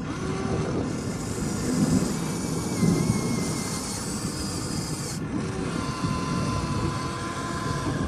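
Huina radio-controlled excavator working, its electric motors and gearing running as the boom and bucket move through soil. A high hiss stops abruptly about five seconds in.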